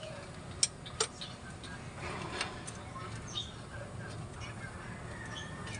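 Sharp metallic clicks and taps of a hand tool working the A/C compressor's belt adjuster: two loud clicks about half a second and a second in, then lighter, scattered ticks.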